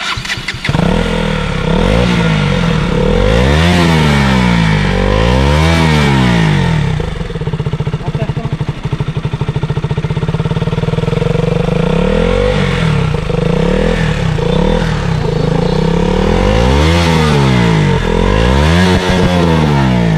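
KTM RC 200's single-cylinder four-stroke engine being revved while standing, with about five rev blips that rise and fall in pitch and steady running in between.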